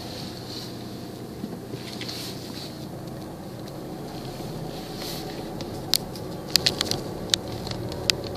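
Car engine and road noise heard inside the cabin while driving, a steady hum. In the last two seconds there is a quick run of sharp clicks.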